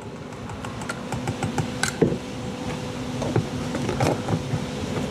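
Light clicks and short scrapes of small-parts handling as a clutch cable and its end fitting are cleaned with a pick before soldering, with a few sharper ticks and a faint steady hum underneath.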